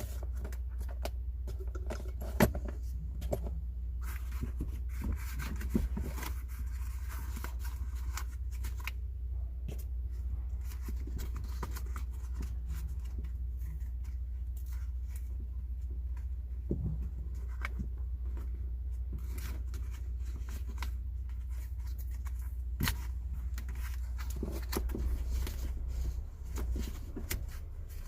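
Hands at work with tools and parts: scattered clicks, taps, knocks and rustles, with sharper knocks about two and a half seconds in and again near the middle and toward the end, over a steady low hum.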